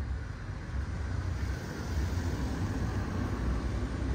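A car driving past on the road, a steady engine-and-tyre rumble that grows louder as it approaches.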